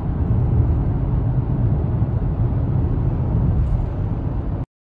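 Steady low road rumble inside the cabin of a Hyundai Ioniq 5 electric car cruising at highway speed. It cuts off abruptly near the end.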